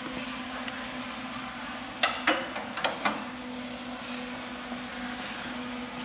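Barnstead Thermolyne muffle furnace running hot with a steady electrical hum. About two seconds in, a quick run of four or five sharp metal clunks and clicks.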